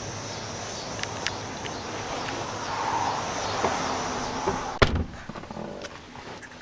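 Scattered light clicks and handling noise from the rear-seat interior trim of a pickup's crew cab, with one loud sharp thump about five seconds in.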